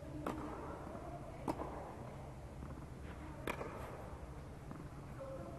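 Tennis ball impacts during a rally, racket hits and bounces on the court: three sharp pocks, about a second and then two seconds apart, with a short echo, over a steady low hum.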